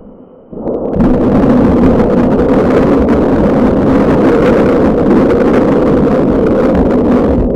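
Close thunder from a nearby lightning strike: a sudden very loud crash about half a second to a second in, then a heavy, steady noise that stays loud to the end.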